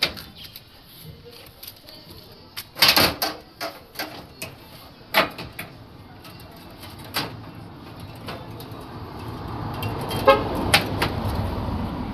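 Irregular sharp knocks and clicks, the loudest about three seconds in, with a low rumble building over the last few seconds.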